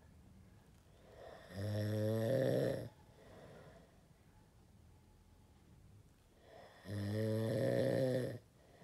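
A sleeping person snoring: two deep, growling snores about five seconds apart, each lasting over a second, with quiet breathing between them.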